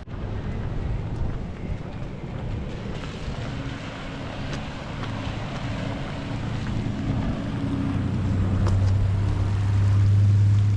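Steady rain with wind noise on the microphone, and a low motor hum that builds in the second half and is loudest near the end.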